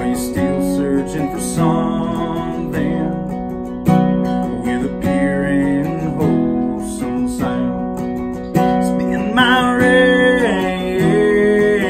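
Two acoustic guitars strumming a slow country ballad, with a harmonica playing a wavering melody over the chords about a second and a half in and again near the end.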